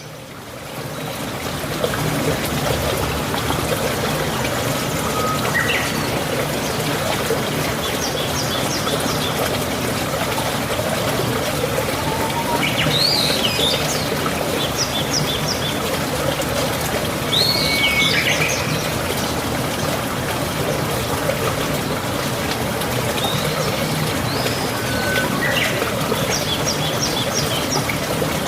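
Mountain stream water flowing steadily, fading in over the first two seconds, with birds calling over it every few seconds: quick runs of high repeated chirps and short swooping calls.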